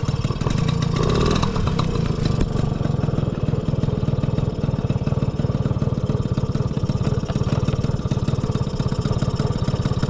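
Honda Motocompo AB12's 49cc two-stroke single-cylinder engine idling steadily, with a slight rise about a second in. It runs without abnormal noises.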